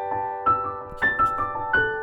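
Background music: soft electric-piano chords with notes struck every half second or so over a light low beat.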